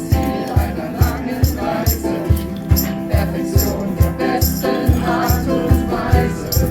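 Ukulele music with singing over a steady low beat and a shaker-like rattle.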